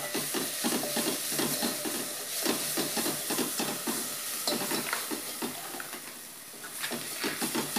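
Steel spoon stirring and scraping chopped onion and capsicum round a metal pot, in quick repeated strokes over a steady sizzle of frying. The stirring eases off for about a second near the end, then starts again.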